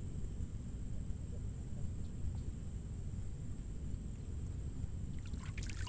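Outdoor lakeside ambience: insects chirping in a steady, high, pulsing trill over a low wind rumble on the microphone, with a few faint clicks near the end.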